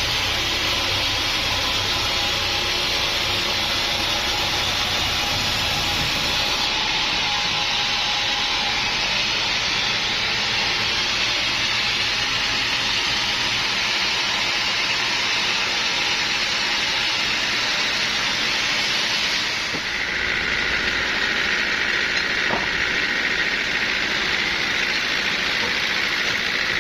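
Sawmill machinery running with a loud, steady rushing noise. The sound shifts about 7 seconds in, and again about 20 seconds in, when a steady high tone comes in over the noise.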